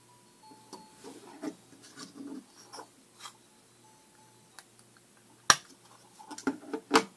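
A push-button electronic toy's sound chip plays faintly through its small speaker, a few thin beeping tones, its volume cut down by a resistor wired in series. Clicks and knocks of the plastic toy being handled run alongside, with sharp clicks about five and a half seconds in and near the end as the loudest sounds.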